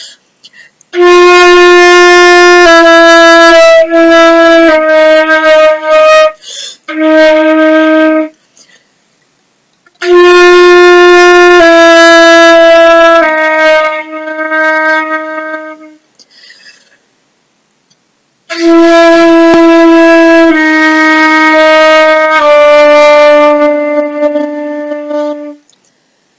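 Flute playing a low-register tone exercise: three slow phrases of long held notes, each phrase stepping down in pitch note by note, with short silences between the phrases.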